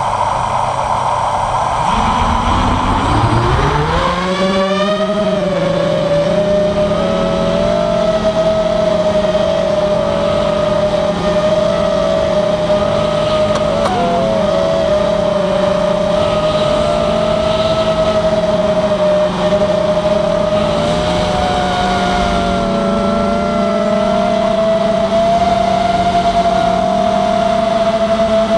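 Diatone 225 FPV quadcopter's brushless motors, heard from its onboard camera. After a couple of seconds of hiss, the motors spin up in a rising whine about two to four seconds in. They then hold a steady high whine in flight, wavering slightly with throttle.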